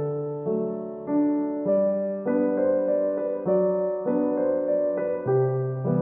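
Background music: a soft piano melody, its notes changing about every half second to second.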